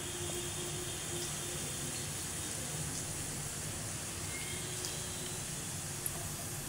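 Hot oil sizzling steadily in a small pan, with mustard and cumin seeds frying in it for a tempering.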